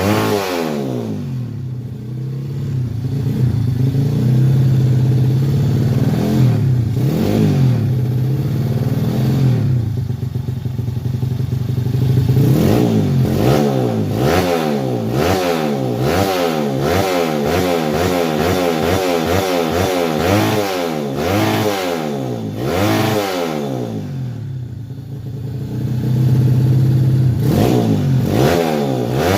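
Underbone step-through motorcycle engine and exhaust being revved over and over, its pitch rising and falling with each throttle blip. The revs are held steadier at a few points, quickest and most continuous in the middle, and drop briefly near the end before rising again.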